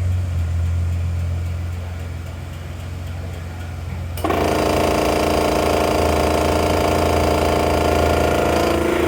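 2008 FIRST MCV-1100 CNC vertical machining center running: a steady low hum, then about four seconds in a louder mechanical whine with a rattle switches on abruptly and runs steadily.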